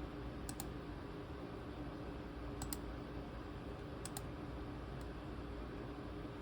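Three pairs of short, sharp clicks from the ThinkPad T23 laptop's keys or buttons being pressed, over a steady faint hum.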